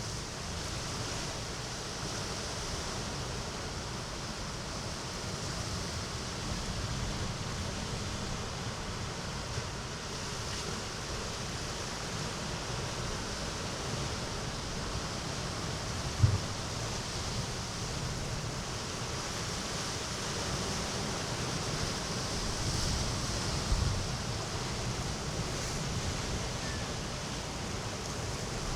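Sea waves washing steadily into a small cove, swelling a little louder in the later part. Two brief low thumps break through, about halfway and near the end.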